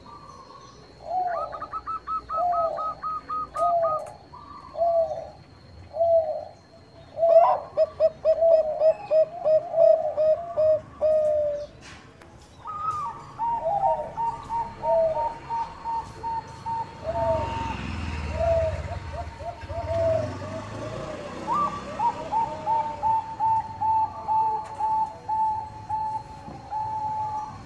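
Zebra doves (Bangkok-bred perkutut) cooing: short rolling coo notes repeat about once a second. Faster runs of higher, quicker notes from another bird overlap them, so two or more birds call over each other.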